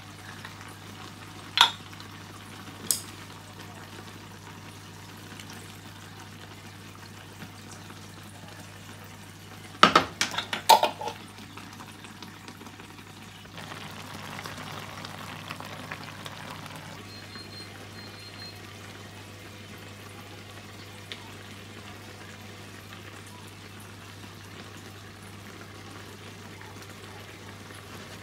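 Kimchi ramen noodles simmering in a pan on the hob: a steady faint bubbling hiss over a constant low hum. A few sharp clicks and knocks break in near the start and again about ten seconds in.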